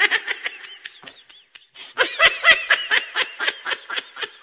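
High-pitched, rapid laughter sound effect: quick chuckling syllables that fade away over the first second and a half, then start again louder about two seconds in.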